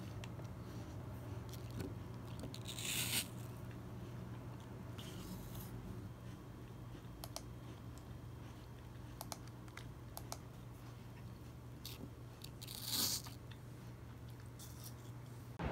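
Crunchy bites into sliced raw apple, two loud crunches about three seconds in and near the end, with a few light clicks in between over a steady low hum.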